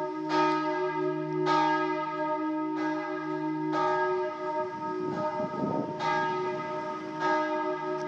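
Church bells ringing, a fresh stroke about every second over the hum of the bells still sounding.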